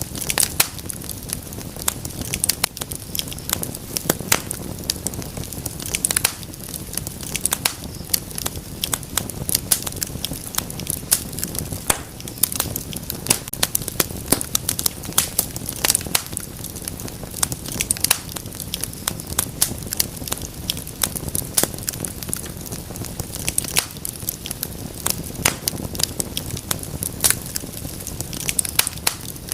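Wood fire crackling in a fireplace: dense, irregular sharp pops and snaps over a steady low hiss of flame.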